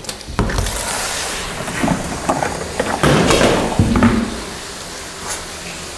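Tap water running into a plastic bowl of spinach leaves in a stainless-steel sink, with several knocks and clunks as the bowl and leaves are handled.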